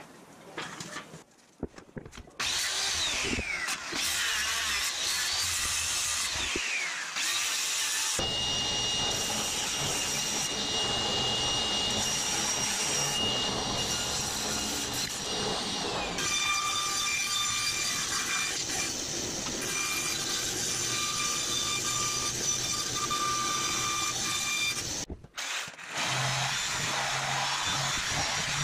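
Power saws cutting oriented strand board: a table saw running through the sheet with a steady whine, then, about halfway, a jigsaw cutting it. The sound stops briefly near the end before the jigsaw starts again.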